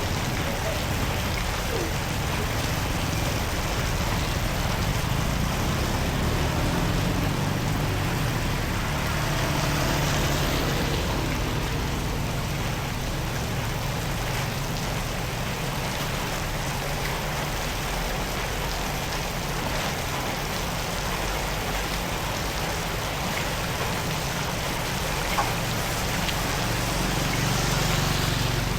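Steady rush of flowing floodwater with rain, over a low rumble; one sharp click near the end.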